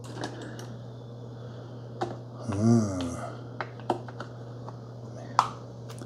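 Several sharp plastic clicks and clacks as the lid of a Keurig K-Supreme Plus Smart coffee maker is lifted open and a K-Cup pod is handled, the sharpest click about five seconds in. A steady low hum runs underneath.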